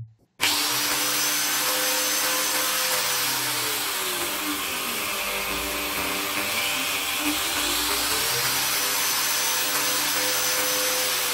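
Corded angle grinder motor starting suddenly about half a second in and running with a whine. About three seconds in it slows down as its speed is turned down through an electronic voltage regulator, runs slower for a few seconds, then speeds back up to full by about nine seconds in.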